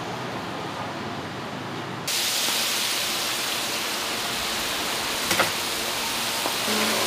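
Food deep-frying in a vat of bubbling oil: a loud, even hissing sizzle that starts abruptly about two seconds in, after a duller steady noise, with a sharp metallic clink a few seconds later.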